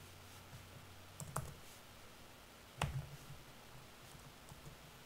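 Quiet room tone with a few faint clicks at a computer: a soft pair about a second in and a sharper single click near the middle.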